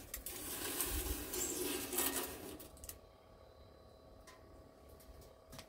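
A foil-wrapped pizza on a wire rack crinkling and scraping against the stainless steel box of a Winnerwell stovepipe oven as it is pushed in, for about the first three seconds. A couple of light metal clicks near the end.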